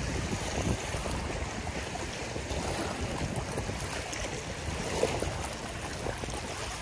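Small waves lapping and washing over shoreline rock, a steady watery wash with a low irregular rumble of wind on the microphone.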